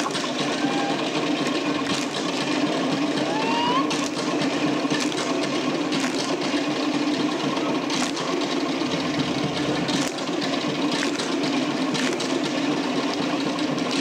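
Fast Tahitian 'ote'a drumming: wooden to'ere slit drums beaten in rapid, dense rolls, with sharp accents every second or two.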